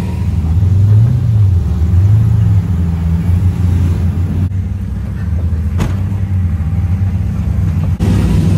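Off-road vehicle's engine running at low speed, revving up and back down twice in the first few seconds, then holding a steady drone. There is a single sharp click about six seconds in.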